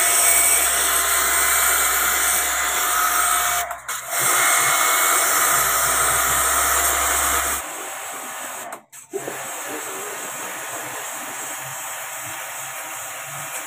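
Electric pressure washer running while its water jet sprays into a split AC indoor unit: a steady motor drone with the hiss of the spray. There is a brief break about four seconds in. About halfway through the low drone stops and only a quieter spray hiss continues.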